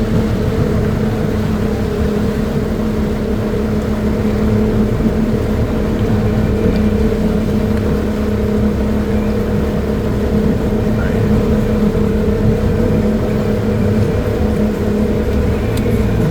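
Motorboat engine running at a steady speed, a constant drone that holds one pitch throughout.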